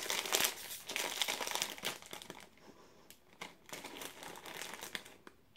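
Plastic snack bag crinkling as it is worked open by hand, loudest in the first two seconds, then lighter rustling as it is handled.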